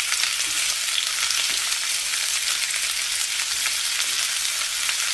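A steady crackling hiss, like food sizzling.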